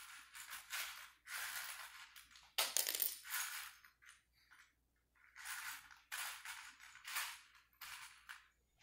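A person breathing deeply while holding a yoga stretch: a run of soft, breathy rushes with a quiet pause near the middle.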